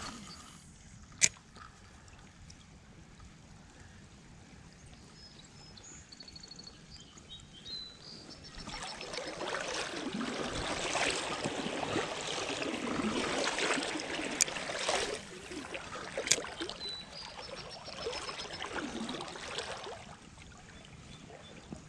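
Spinning reel cranked to bring in the line: a gritty whirring that starts about eight seconds in and runs for about ten seconds, dipping briefly partway through. A single sharp click comes about a second in.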